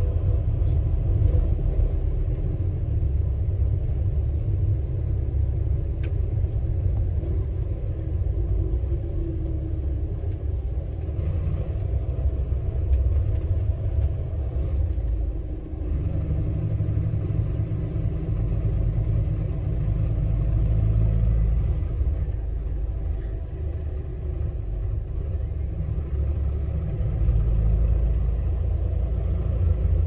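City route bus heard from inside the cabin while driving: a steady low engine and road rumble. The low drone changes about halfway through and again near the end.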